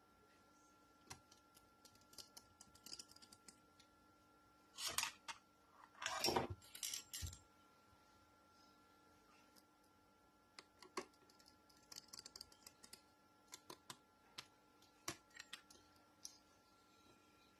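Faint clicks, taps and small rattles of hand tools and laptop parts being handled during a MacBook repair, with two louder brief scraping rustles about five and six seconds in.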